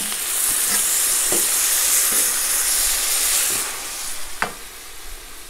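Browned beef pieces tipped from a tray into hot oil and fried onions in a kazan, sizzling loudly as they hit the fat. The sizzle dies down after about three and a half seconds, with a short knock near the end.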